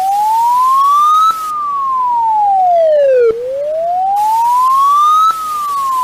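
Loud wailing siren: one clean tone rising slowly for about two seconds, then falling for about two seconds, peaking twice. It is the sound passed around online as Poland's emergency alert, for which there is no evidence that it is the alert really used.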